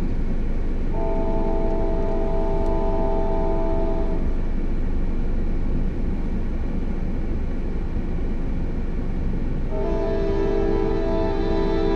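CSX freight locomotive's multi-chime air horn sounding two long blasts of about three seconds each, the first about a second in and the second starting near the end, over a steady low rumble.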